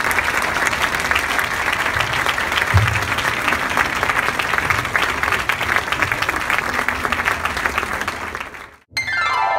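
Audience applauding, a dense steady clapping that breaks off suddenly near the end. It gives way to a short musical sweep falling in pitch.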